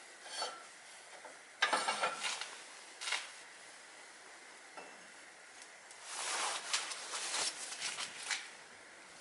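Light metallic clinking and scraping in several short spells, as of metal parts or tools being handled.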